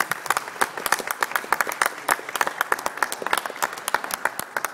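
A group applauding, with one pair of hands clapping close to the microphone, louder than the rest.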